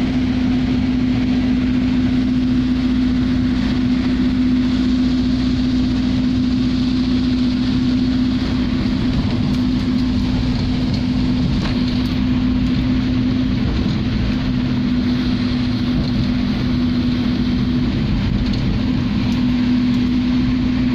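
Car driving through heavy rain, heard from inside the cabin: a steady engine and road hum under a constant hiss of rain and tyre spray.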